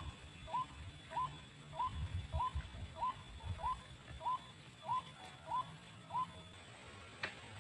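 White-breasted waterhen calling, a steady string of short, rising 'ruak' notes at about one every half-second, which stops about six seconds in. Low rumbling sounds under the first few notes.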